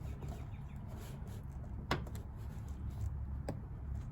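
Two sharp clicks, the louder one about two seconds in and another near the end, over a steady low hum: the tabs of a car door speaker grille being bent over by hand to hold it in place.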